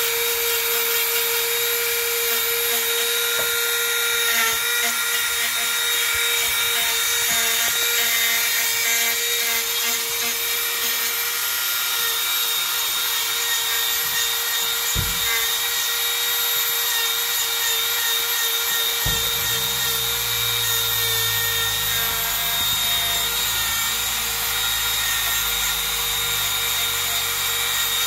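Dremel rotary tool running at speed through its flex shaft, a steady high whine, as its small ball-shaped bit grinds into the wood of a carving. Two brief knocks come partway through.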